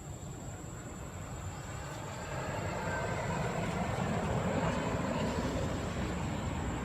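A vehicle's rumble growing louder about two seconds in, as if approaching, over a steady faint high whine.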